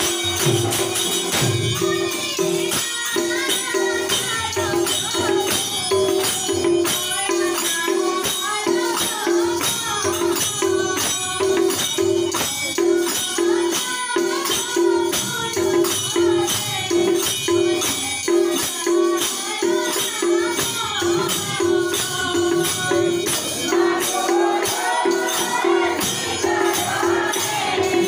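Devotional group music: voices singing over steady jingling percussion and a repeating low pulse that keeps an even beat.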